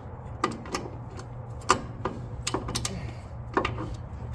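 Sharp metallic clicks and taps of hand tools on the loosened top spindle castle nut of a 1968 Chevy Nova's front suspension, about eight irregularly spaced strikes, over a steady low hum.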